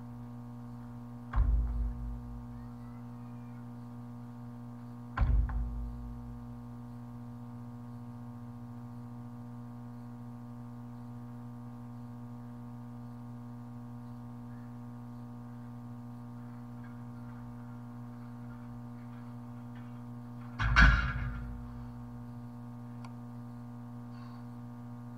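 Large tractor tire flipped on concrete, landing with two heavy dull thuds about four seconds apart. Near the end a louder, sharper thud as steel farmer's walk handles are set down. A steady hum runs underneath.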